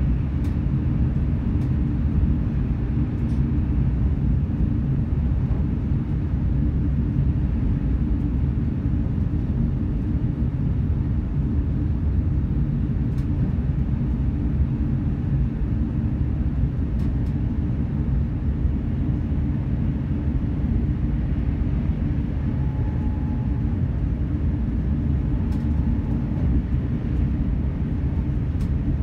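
Running noise of a Hitachi intercity train at high speed, heard inside the carriage: a steady, loud low rumble of the wheels on the rails, with a few faint ticks.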